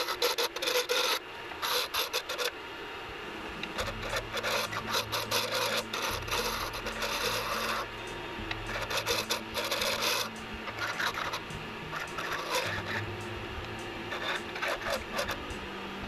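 Turning tool cutting a spinning Purpleheart pen blank on a wood lathe: an irregular scraping, rasping sound that comes and goes in spells. A low steady hum comes in about four seconds in.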